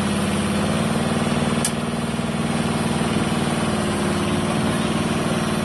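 Excavator engine running steadily at a constant speed, with one short sharp click about a second and a half in.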